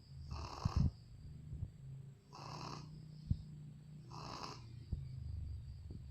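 Shih Tzu dog snoring in its sleep: three snoring breaths about two seconds apart, with a steady low hum between them. A few short, sharp clicks fall among the breaths, the loudest near the first one.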